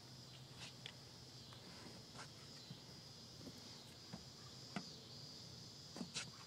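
Faint, steady chirring of insects, with a few light, sharp clicks scattered through it from a hand tool being handled in the car door's empty speaker opening.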